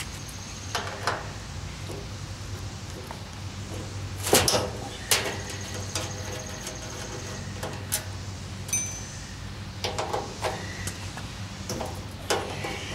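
A hand screwdriver backing the screws out of a stainless-steel gas grill's front control panel: scattered metal clicks, knocks and scrapes, the loudest about four seconds in, over a steady low hum.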